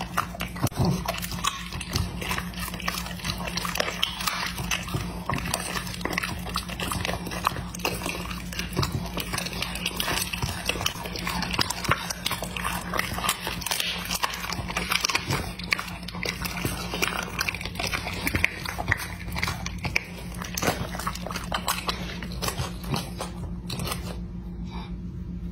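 A bully-type dog chewing and biting raw meat fed from a hand, with wet smacking and crunching clicks, over a steady low hum. The chewing dies down about a second before the end.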